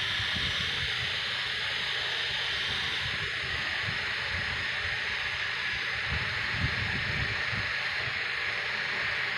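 A sleeping woman snoring, with a low rumbling snore about six seconds in, under a steady hiss.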